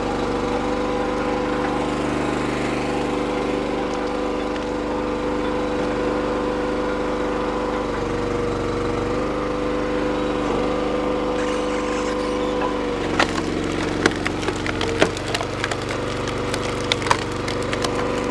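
Small engine of a hydraulic log splitter running steadily. From about two-thirds of the way through, a pine round is forced through the multi-way splitting wedge, with a string of sharp cracks and splintering snaps as the wood splits apart.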